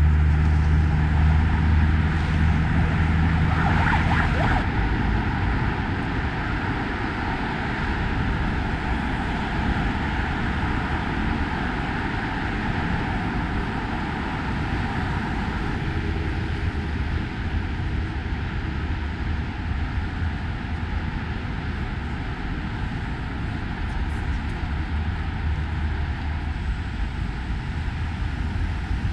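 Continuous road traffic on a multi-lane city avenue, a steady rush of passing cars and tyre noise. A heavy vehicle's low engine drone is loudest at the start and fades out within the first five seconds.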